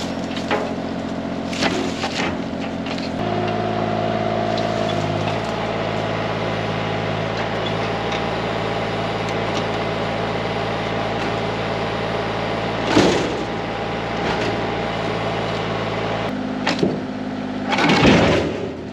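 Excavator's diesel engine and hydraulics running steadily while working a log grapple. The engine note shifts about three seconds in and again near the end. A few sharp knocks and cracks come through, the loudest near the end.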